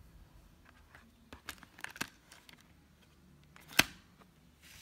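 A DVD being handled in a plastic multi-disc case: a few light clicks, then one sharp plastic click a little before the end.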